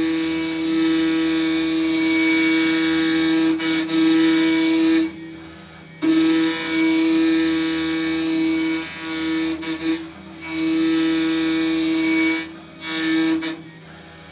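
TS-30 CNC router's spindle running with a steady whine while its cutter engraves an acrylic sheet on a half-millimetre-deep pass. The sound is loud for stretches of a few seconds, broken by sudden drops every few seconds.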